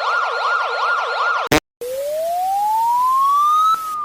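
Electronic emergency-alert siren: a fast wail sweeping up and down about three times a second, cut off by a click about a second and a half in. After a brief gap, a slow wail rises in pitch for about two seconds and begins to fall near the end.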